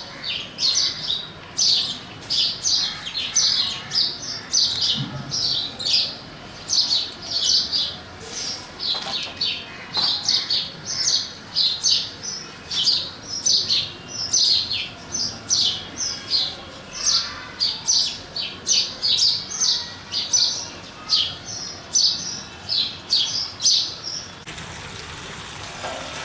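House sparrows chirping, a steady stream of short high chirps, about two to three a second. Near the end the chirping gives way to a tap running water into a plastic container.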